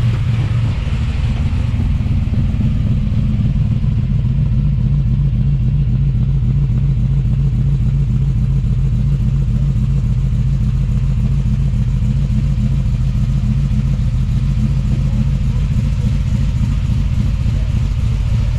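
565-cubic-inch big-block Chevrolet V8 idling steadily, a loud, deep pulsing run that holds even throughout.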